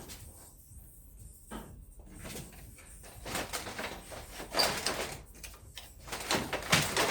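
Scraping, knocking and clattering as a Volkswagen Touareg's radiator fan assembly is worked loose and pulled out. The handling comes in two busy bouts, the first about three seconds in and the second near the end, with the sharpest knocks in each.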